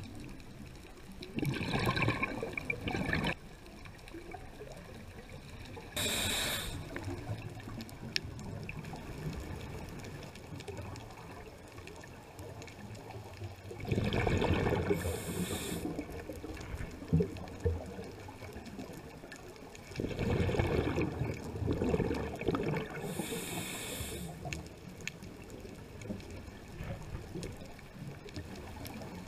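Scuba diver breathing through a regulator underwater: three rushes of exhaled bubbles, each followed a few seconds later by the short hiss of an inhalation, with a faint steady water noise in between.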